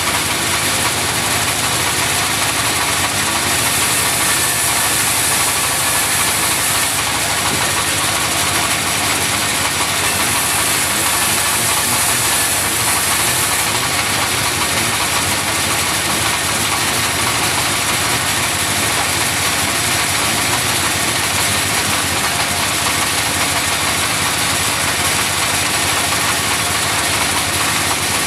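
Engine-driven wood sawmill running steadily, a loud even drone with a high hiss that grows louder twice, about three and ten seconds in.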